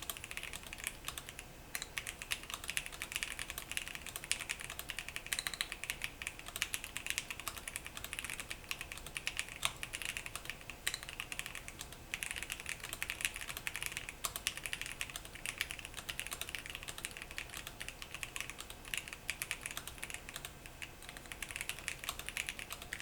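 Fast, continuous typing on an Akko M3W aluminum-case mechanical keyboard: a dense, steady stream of key clicks, fairly faint.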